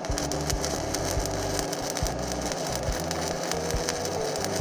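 Stick-welding arc crackling with irregular sharp pops as a 3 mm UONI 13/55 basic-coated electrode burns on a steel pipe, fed by a Wert Mini 200 inverter through a homemade choke. The arc holds, but not very well.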